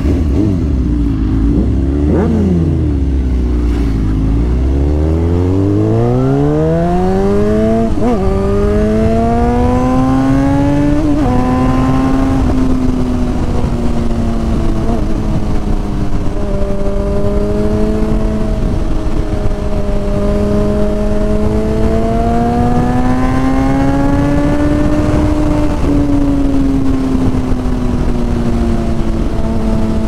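Suzuki GSX-R1000 K8 inline-four with a decatted dual exhaust, heard from the rider's helmet. It runs low with a short rev blip about two seconds in, then pulls away with its note climbing steadily for several seconds. It then settles into a cruising note that rises and falls gently with the throttle, over wind rush.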